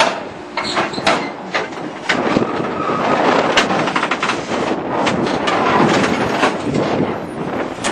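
Heavy scrap-processing machinery running, with irregular metal clanks and bangs of scrap steel being handled and cut over a steady din. There is a short metallic squeal about halfway.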